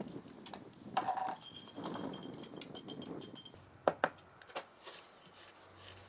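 Small hard parts being handled: light clinks and knocks, a short ringing knock about a second in, and two sharp, louder knocks close together about four seconds in.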